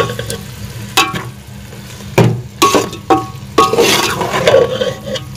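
A metal spoon stirs beef chunks frying in oil and spices in a metal pot, scraping and knocking against the pot about five times over a steady frying sizzle.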